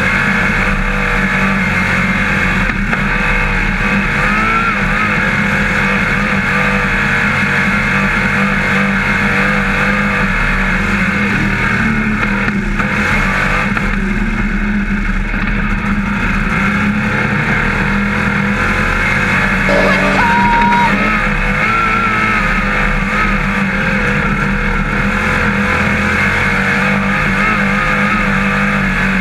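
Dirt modified race car's engine running hard at racing speed, a loud steady drone whose pitch wavers a little as the car laps the track.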